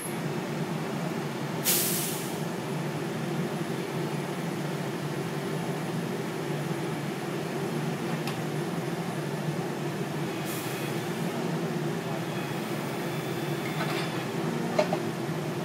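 Diesel engine of a truck-mounted hydraulic crane running steadily, with two short hisses about two seconds in and about ten seconds in.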